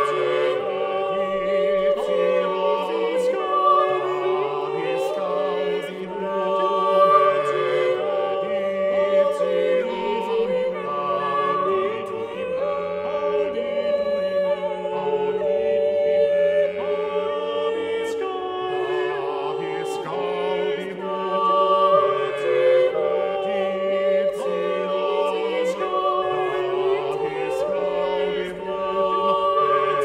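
A small mixed group of voices singing a canon a cappella, several sung parts overlapping in long held notes, with no instruments.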